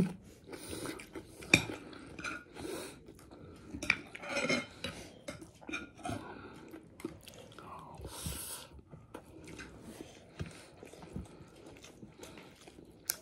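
A plastic spoon scraping and clicking against a plate of rice as a person scoops biryani, with chewing in between. The sounds are irregular and short, with no steady rhythm.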